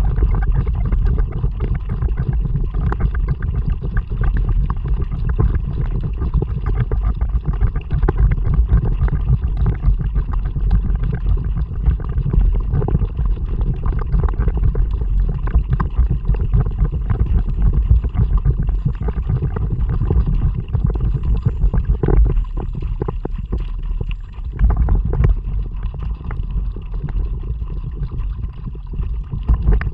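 A kayak moving through the water, with water gurgling and splashing against the hull and paddle. A steady low wind rumble on the action camera's microphone sits under it, easing briefly about two-thirds of the way through.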